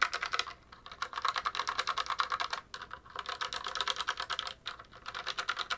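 RAPOO MT500 mechanical keyboard with red linear switches being typed on rapidly: fast runs of light key clacks broken by a few short pauses.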